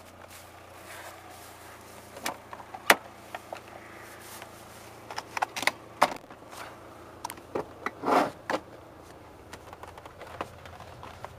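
Scattered clicks, knocks and rustles of handling in and around a car, the loudest a single sharp click about three seconds in and a longer rustle around eight seconds in, over a faint steady hum.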